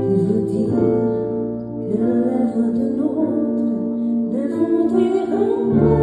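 A woman singing live into a microphone over instrumental accompaniment, her held notes wavering with vibrato; the accompaniment changes to a new low note near the end.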